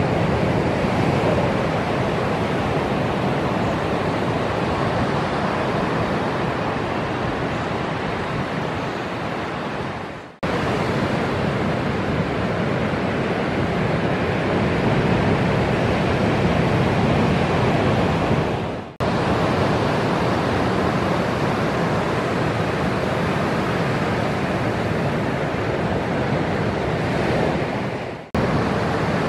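Ocean surf: large waves breaking and washing in, a steady rush of noise that fades and drops out briefly three times, about ten, nineteen and twenty-eight seconds in.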